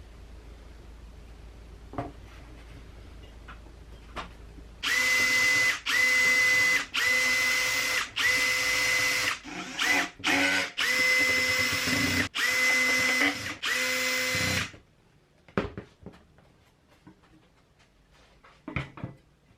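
Power drill-driver running in a quick series of bursts of about a second each, a steady whine stopping and starting, as screws are driven during assembly. A few light handling knocks come before and after.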